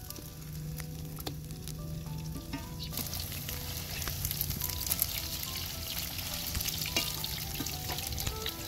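Grated-potato patties frying in hot oil in a wide shallow metal pan over a wood fire: a steady sizzle and crackle that grows much louder about three seconds in, with a few clicks of the metal skimmer against the pan. Faint background music runs underneath.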